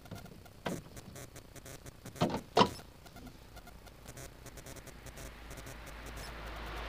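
A few sharp knocks on the gravity car's body shell, the loudest about two and a half seconds in, then from about five seconds in an approaching car, its road noise growing steadily louder.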